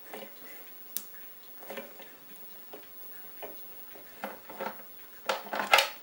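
Irregular light clicks and taps of small metal hardware being handled and fitted: the retaining pins and bushings of a wooden tool chest. The clicks grow louder and come closer together near the end.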